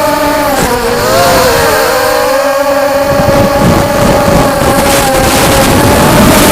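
FPV racing quadcopter's motors and propellers whining under throttle, the pitch dipping about a second in and then holding nearly steady.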